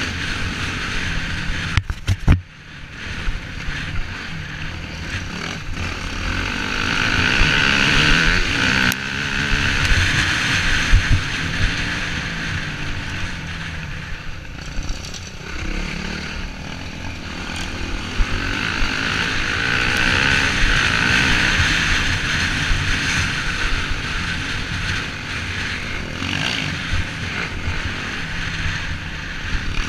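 Off-road motorcycle engine running under way on a dirt trail, its revs rising and falling with the throttle, with wind rush over the bike-mounted microphone. The sound drops sharply about two seconds in, then builds back.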